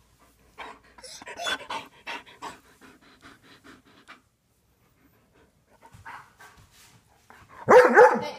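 Dog panting close to the microphone, quick breaths about four a second, pausing for a couple of seconds midway. Near the end comes one short, louder cry with a bending pitch.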